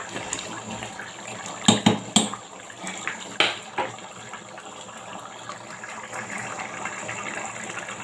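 Steady watery noise with a few sharp knocks in the first four seconds.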